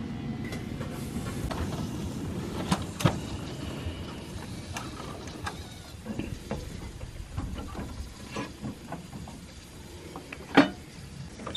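Scattered metal clicks and knocks from hands working the coupling and fittings of a 7¼-inch gauge railway wagon and riding car, with one sharp click about ten and a half seconds in. A low steady rumble underneath fades out after the first few seconds.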